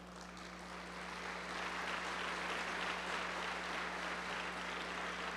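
Audience applauding, fairly faint, building up over the first second or two and then holding steady.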